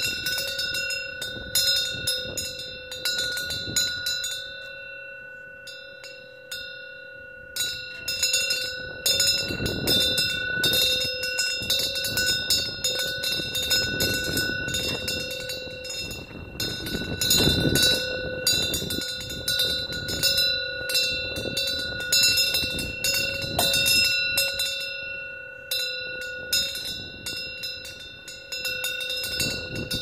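Metal temple wind bell (pungyeong) with a fish-shaped wind vane, its clapper striking again and again as the wind swings it, the bell ringing on without a break. Strikes come thinly for a few seconds early on, then densely again. Gusts of wind hit the microphone, strongest about ten and eighteen seconds in.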